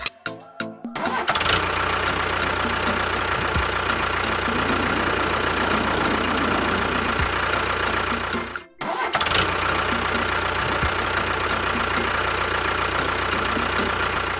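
A motor running steadily with a hum and a whine. It starts about a second in, cuts out for a moment a little past halfway, then runs on.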